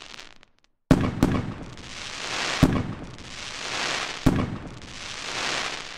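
Fireworks going off: four sharp bangs, two close together about a second in, then one at about two and a half seconds and one at about four, each followed by a long crackling hiss that swells and dies away.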